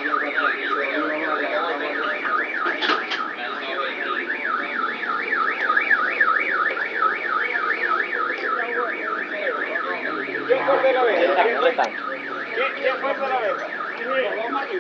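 Electronic alarm siren warbling rapidly up and down, several sweeps a second, in the manner of a car alarm. Voices are heard under it in the latter part.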